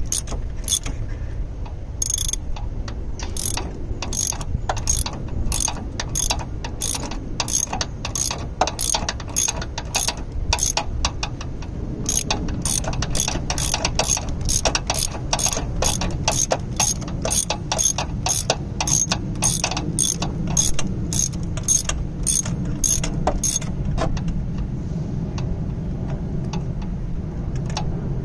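Socket ratchet on a long extension clicking in repeated strokes, about two a second, as it is swung back and forth to turn a bolt. The clicking breaks off briefly near the middle and stops a few seconds before the end.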